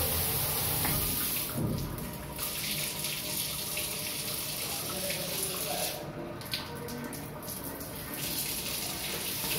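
Overhead rain shower head with Katalyst air-induction spray running, a steady spray of water falling in many streams.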